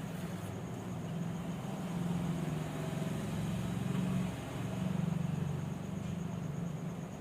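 A steady low mechanical hum, like a motor running, growing louder in the middle and dipping briefly before rising again.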